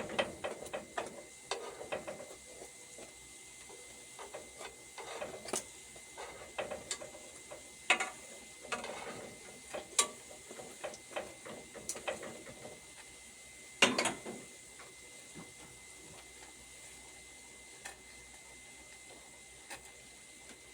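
Irregular clicks and clatter of cooking utensils against pots and pans over faint sizzling from frying. The knocks are busiest in the first fifteen seconds and then thin out to a steady low background.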